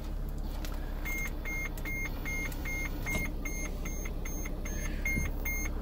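Sprinter van's engine idling with a steady low hum, and from about a second in a rapid, regular series of short high-pitched electronic warning beeps, about two and a half a second.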